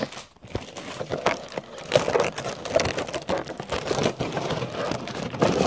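Clear plastic packaging crinkling and rustling as it is handled, with many irregular small clicks and crackles.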